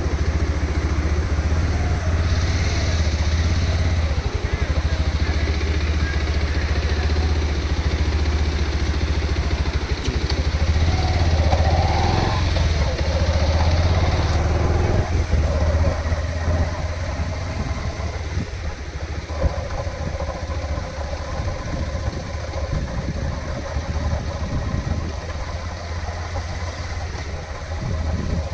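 Motorcycle engine running steadily with a deep low hum, a little quieter from about halfway through.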